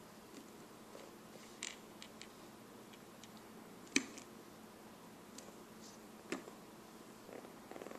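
Scattered light taps and clicks of a baby's fingertips on a plastic high chair tray, the sharpest about four seconds in and a few quick ones near the end.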